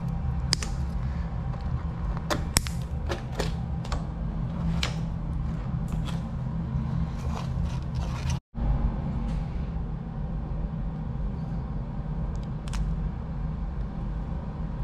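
Scattered sharp clicks and snaps of hand tools and plastic parts being handled at snowmobile handlebar wiring, over a steady low hum. The sound drops out for a moment about eight seconds in, and the clicks are fewer after that.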